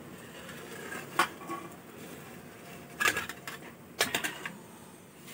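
Metal spatula clinking and scraping against a metal steaming pot and its perforated plate as a whole chicken is turned over: one sharp clink about a second in, then two short bouts of clatter around three and four seconds.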